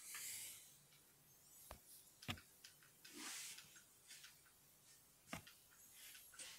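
Faint rustling of a loose white cloth sheet being pawed and tugged by a cat, in two brief bursts, with a few soft clicks in between.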